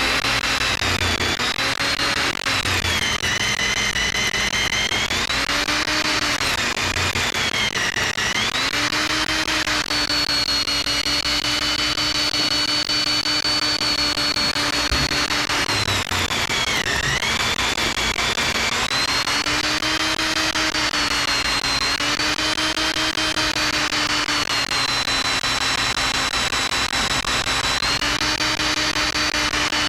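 Electric drill running under load, its bit boring into a seized steel wheel stud through the lug nut to free an over-torqued, possibly cross-threaded nut. The motor's whine dips in pitch several times as the bit bites, then picks back up, over a steady grinding of metal being cut.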